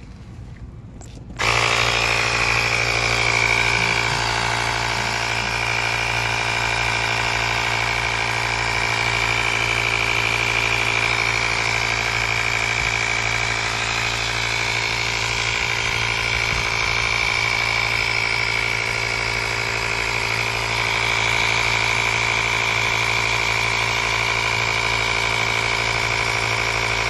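Cordless portable tyre inflator's small piston compressor switching on suddenly and running steadily, a buzzing hum with a high whine on top, until it cuts off abruptly.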